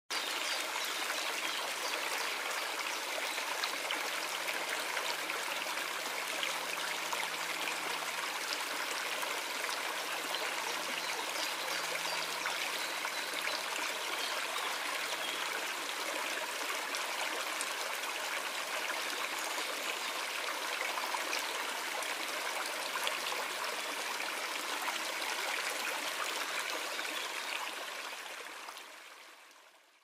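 Water cascading down a small waterfall over mossy rocks: a steady rushing and splashing that fades out near the end.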